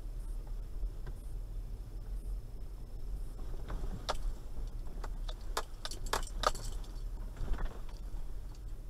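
A steady low rumble of a Toyota Land Cruiser 120's engine and tyres, heard inside the cabin at low speed. A quick run of light clicks and rattles starts about three and a half seconds in and lasts a few seconds.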